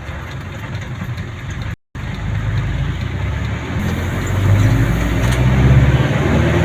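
A motor vehicle's engine running on the road, with a brief cut to silence just before two seconds in. After the cut the engine note strengthens and grows louder through the second half, then eases off near the end.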